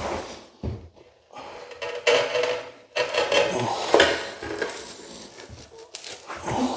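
Tile-setting hand tools scraping and clinking irregularly, with sharper knocks about two and four seconds in.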